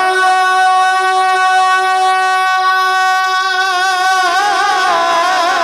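Male naat reciter singing, holding one long steady note for about three seconds. He then breaks into wavering, sliding ornaments on the melody.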